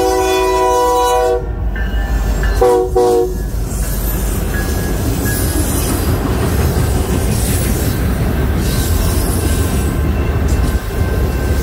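CN freight locomotive's air horn sounding a long chord, then two quick short blasts a little over a second later, followed by the steady rumble of the train rolling past.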